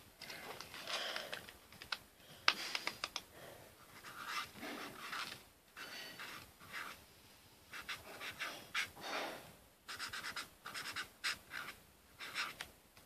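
Marker scratching on paper in irregular strokes, with faint ticks from the pen, while drawing.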